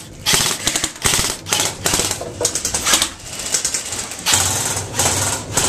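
Airsoft guns firing in quick bursts of sharp cracks, with a longer sustained burst near the end.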